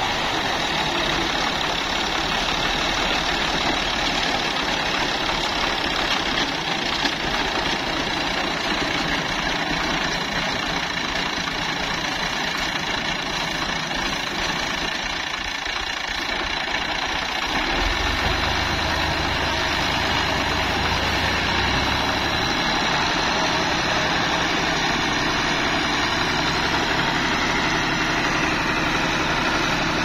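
New Holland 480 tractor's diesel engine running steadily while it drives a front-mounted reaper cutting wheat. About 18 seconds in, a deeper low hum comes in under the engine note.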